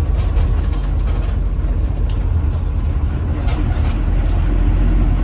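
Steady low rumble of a bus engine running, heard from inside the passenger cabin.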